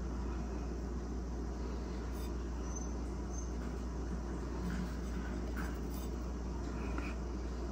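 Steady low background hum with faint even room noise, and a few faint soft ticks in the second half.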